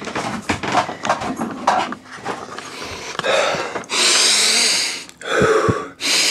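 Light knocks and rustling as a man moves down into a small boat cabin. About four seconds in he takes a long, deep sniff of the cabin air through his nose, then breathes out.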